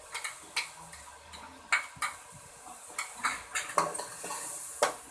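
Spoon knocking and scraping against a pan while stirring minced meat as it fries, in irregular strokes, with a light sizzle that grows near the end.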